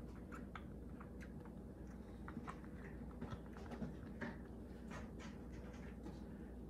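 Kitten suckling from a small nursing bottle: faint, irregular little clicks and smacks from its mouth on the nipple, several a second.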